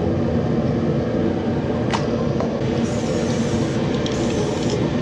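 Aerosol can of gloss black spray paint hissing in two bursts in the second half, over a steady mechanical hum. A single click comes about two seconds in.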